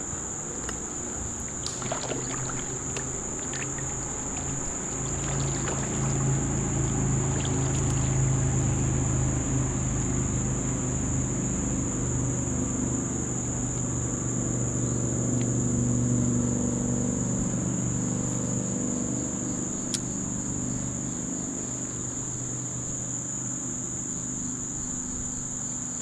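A steady high-pitched insect chorus runs over a low engine hum that grows louder through the middle and then eases off. A few light clicks and knocks come in the first several seconds.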